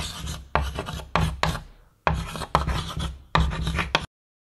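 Chalk writing on a chalkboard: a run of quick scratchy strokes with a brief pause about two seconds in, cutting off suddenly near the end.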